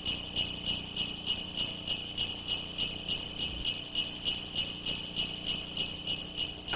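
Sleigh bells jingling, shaken in a steady, even rhythm of about three shakes a second.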